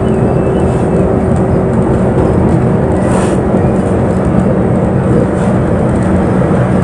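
Town bus heard from inside while it drives: steady engine drone and road rumble, with a short hiss about three seconds in.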